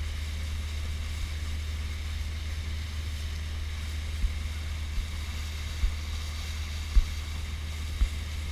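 Small motorboat under way on calm water: a steady low rumble with wind hiss on the microphone. In the second half, five short thumps come about a second apart.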